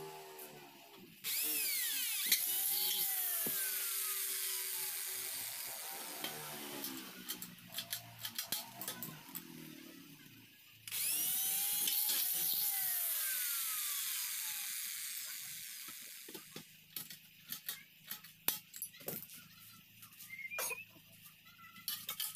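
Handheld electric drill boring through aluminium square tubing, in two runs of about five seconds each that start abruptly and trail off as the motor winds down. Light clinks and knocks of the aluminium pieces being handled follow near the end.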